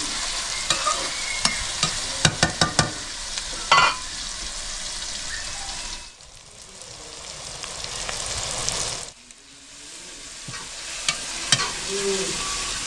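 Sliced onions sizzling in hot ghee in a metal pot as they soften and brown, with a metal spoon stirring and clicking against the pot. The sizzle falls quieter for a few seconds midway.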